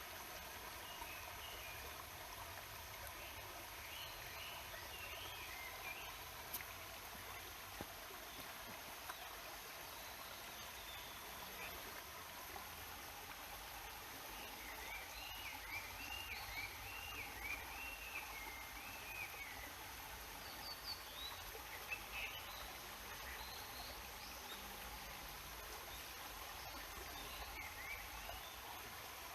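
Steady rush of a mountain stream below a waterfall, with small birds chirping at intervals over it and a longer run of repeated chirps about halfway through.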